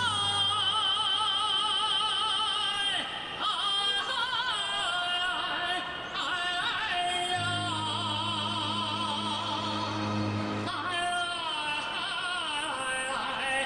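Recorded Northeastern Chinese yangge folk dance music: a bright high melody with wide, wavering vibrato over the accompaniment, with a low held bass note entering about seven seconds in and dropping out near eleven seconds.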